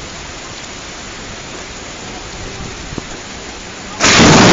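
Heavy rain falling steadily in a thunderstorm. Near the end a sudden, much louder noise cuts in and holds, loud enough to overload the microphone.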